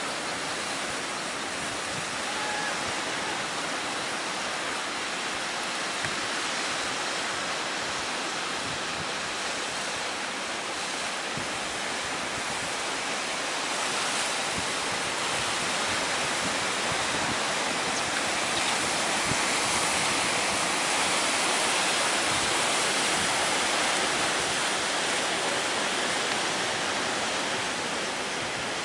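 Strong wind and heavy sea surf: a steady rushing noise that swells a little about two-thirds of the way through.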